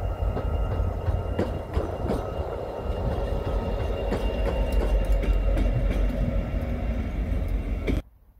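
Vossloh Euro 4000 diesel-electric locomotive, with its two-stroke EMD V16 engine, passing close by: a deep engine rumble with a steady high tone over it and sharp wheel clicks over rail joints. The sound cuts off abruptly near the end.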